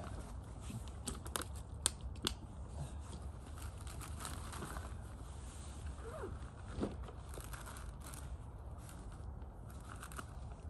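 Plastic bag and backpack being handled and rummaged through: crinkling and rustling with scattered sharp clicks, the loudest two about two seconds in.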